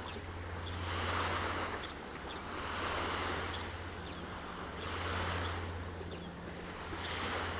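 Small waves washing onto a lakeshore, the wash swelling and fading about every two seconds, over a steady low hum.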